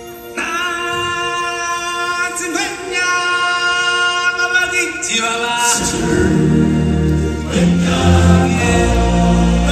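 Stage-show music with a choir of singers holding long, sustained notes; about six seconds in, deep drums and bass come in underneath and the music grows louder.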